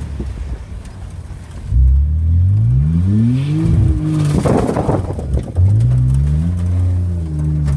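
Car engine revving twice, its pitch climbing each time, with a short burst of noise between the two revs.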